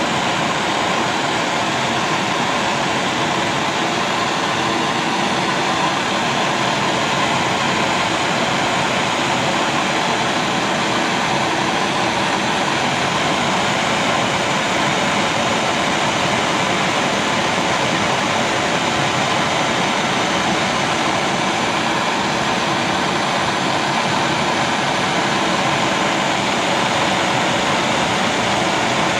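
Gas torch flame burning with a steady rushing hiss, heating paint-coated spanners to bake the coating.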